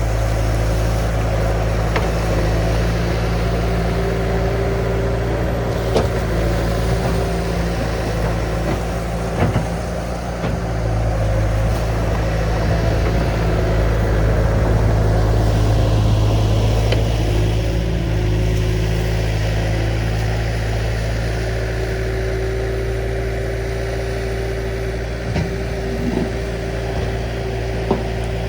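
Diesel engine of a compact earthmoving machine running steadily, its level swelling a little partway through, with a few sharp knocks or clanks.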